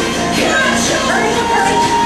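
Recorded song with singing, playing steadily.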